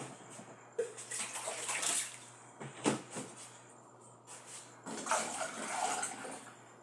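Liquid pouring and splashing into a container in two spells of about a second and a half each, with a sharp knock between them.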